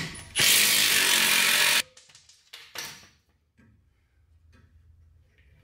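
Power tool spinning an 18 mm socket on a rear shock absorber bolt: a short blip, then a steady run of about a second and a half, followed by a couple of light knocks.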